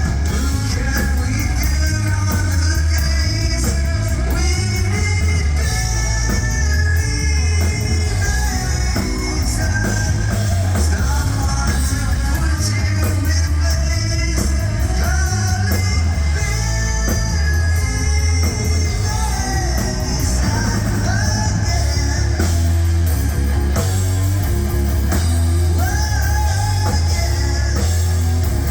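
Live heavy rock band playing loud and steady: electric guitar, bass and drums under a lead singer's vocals.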